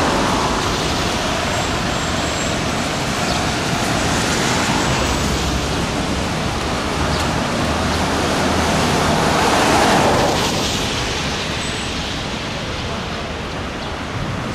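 City road traffic: buses and cars moving along a street, an even rush of engine and tyre noise. It swells about ten seconds in, then eases.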